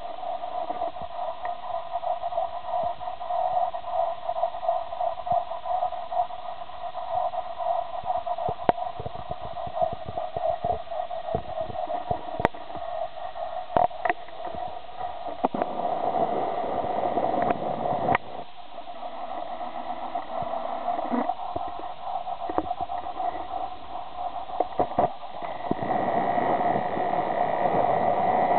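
Steady rushing of the Thur river running high and muddy past the bank, with a few sharp clicks and spells of low rumble mixed in.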